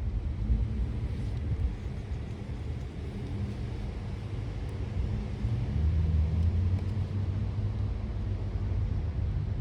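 Wind outdoors, with a steady low rumble that swells about six seconds in.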